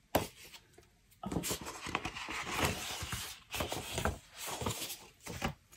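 Sheets of scrapbook paper rustling and sliding against one another as they are pulled from a stack, starting about a second in.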